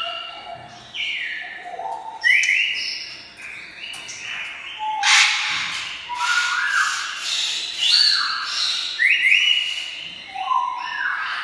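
African grey parrot whistling a string of clear notes, several sliding upward, broken now and then by short harsh squawks.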